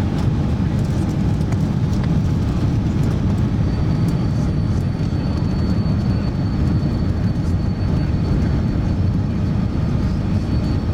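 Steady low rumble inside the cabin of an Airbus A380 while it taxis, with the engines at low power. A faint, high steady whine joins about four seconds in.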